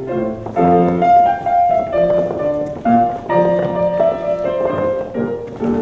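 Grand piano playing ballet class accompaniment: chords and a melody line struck in a steady, measured rhythm.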